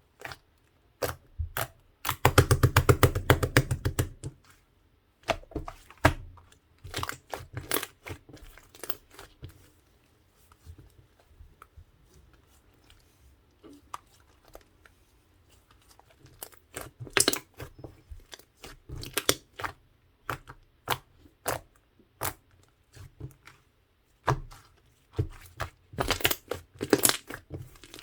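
Mint-chocolate slime being squished and stretched by hand, giving sharp wet clicks and pops. A dense run of fast crackling pops comes about two seconds in, and the clicks thin out for a few seconds in the middle.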